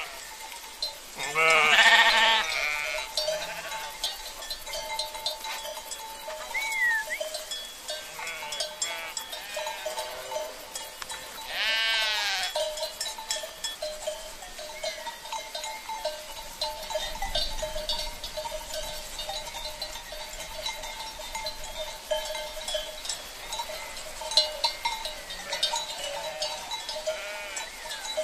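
Sheep bleating: two loud bleats, one about two seconds in and another about twelve seconds in, with fainter bleats from the flock in between and near the end.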